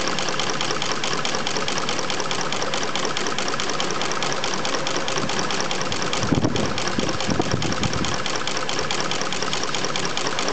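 Hair brush tufting machine running, its head punching bristle tufts into an orange plastic brush body with a rapid, even mechanical clatter. There are a few louder low thuds about six to eight seconds in.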